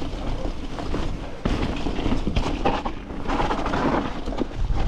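Mountain bike riding over rough, wet ground: tyre noise and the clatter of the bike, with wind buffeting the action-camera microphone and a sharp knock about one and a half seconds in.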